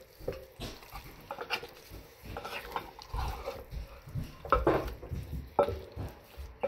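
Wooden spatula stirring raw beef chunks through a wet spice paste in a glass bowl: irregular wet scrapes and light knocks against the glass, with the sharpest knocks about four and a half and five and a half seconds in.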